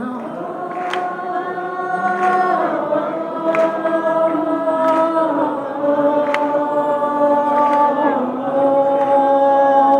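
Live band music: sustained, choir-like chords whose pitches step down every couple of seconds, with a light accent about every second and a half.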